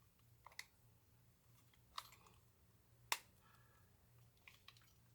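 A few faint, sharp clicks and taps of small metal parts and a tool as the revolver's rear-sight pin is worked into place; the loudest comes about three seconds in.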